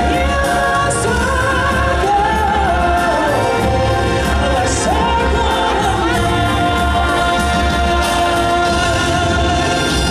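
Stage-show musical number: singers holding long, wavering notes over music with a steady pulsing bass beat.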